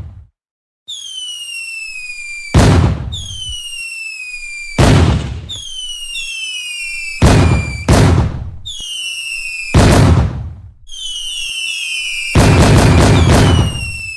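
Fireworks: several whistling rockets, each whistle falling in pitch, and loud bangs about every two to three seconds, with a quick run of several bangs near the end.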